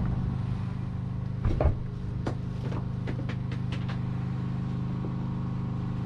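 A steady low mechanical hum with a few light clicks and taps over it.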